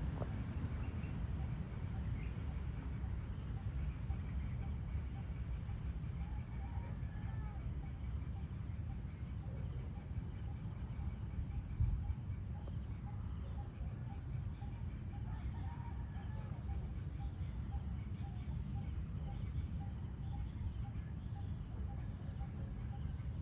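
Dusk ambience: a steady high insect drone with birds calling, including a run of short repeated notes, over a low rumble. A brief low thump about halfway through.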